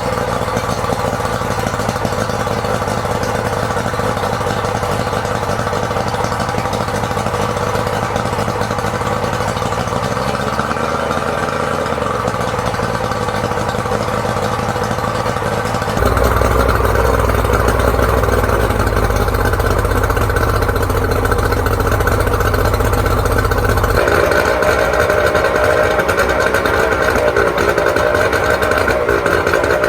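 Yamaha outboard motor running steadily after a Sea Foam shock treatment soak, restarted to burn off loosened carbon. It gets louder abruptly about 16 seconds in, and its tone shifts again near 24 seconds.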